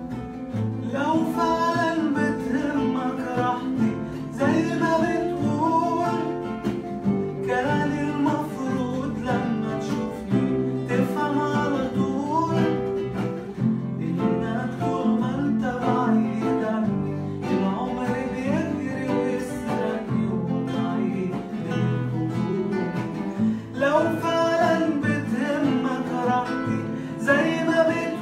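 A man singing an Arabic pop song, accompanied by four acoustic guitars strumming and picking together.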